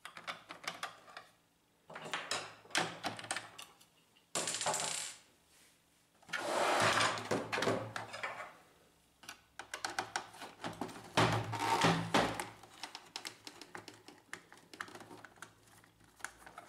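Screwdriver turning out screws from the plastic control-panel housing of a Brother laser multifunction printer: runs of quick clicks and creaks as the screws turn, broken by a few short, denser bursts of handling noise.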